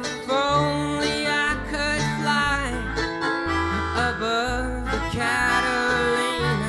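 Live folk string band playing an instrumental break: fiddle lines with sliding notes over strummed guitar, banjo and a walking bass.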